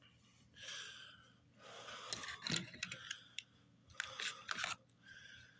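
Diecast car packaging being handled: rustling with sharp clicks and taps in several short bursts, the loudest about two and a half seconds in.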